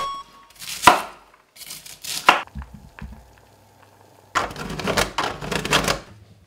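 Kitchen prep on a wooden cutting board: a sharp knock about a second in and a few more about two seconds in, then about two seconds of rasping as food is grated on a stainless-steel box grater.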